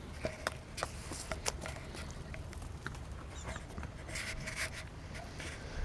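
Puppies scuffling about at play: scattered soft clicks, ticks and rustles over a low steady rumble.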